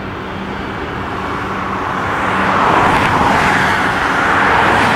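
McDonnell Douglas MD-11 trijet on short final, its engine noise a steady rush that grows louder as the aircraft comes in to land.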